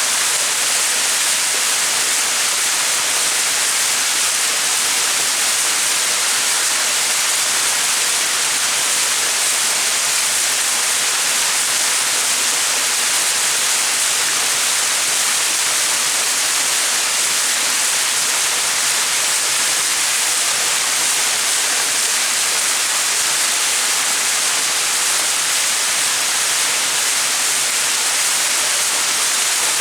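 Small mountain waterfall: water falling and splashing in a steady, even, hissy rush with no breaks.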